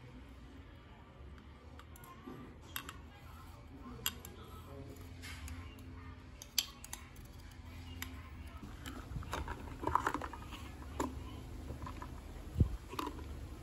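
Light clicks and clinks of ice cubes against a clear plastic cup while iced coffee is made, with a busier patch of clinking about two-thirds of the way in. A single louder knock near the end comes as the domed plastic lid is pressed onto the cup.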